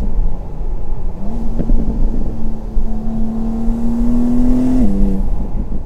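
BMW M2 G87's twin-turbo straight-six with the M Performance exhaust accelerating hard, its note climbing slowly for a few seconds and then falling sharply near the end.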